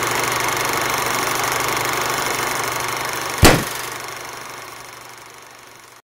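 Intro sound effect: a dense rumbling noise over a steady low hum, with one sharp hit about three and a half seconds in, after which it fades away.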